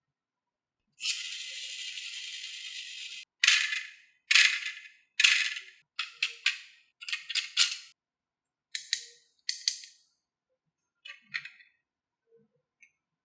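Marbles on a wooden HABA marble run: a steady rolling rush for about two seconds, then a string of sharp clacks as they drop from piece to piece, each ringing briefly, the loudest just after the rolling stops.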